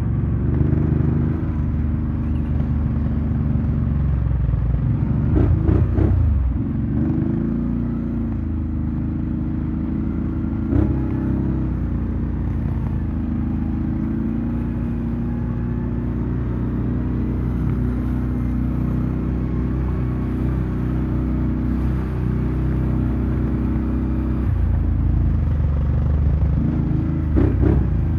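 Off-road vehicle engine running steadily under way, its pitch shifting a few times as the throttle changes, with short knocks and clatter about six seconds in, around eleven seconds, and near the end.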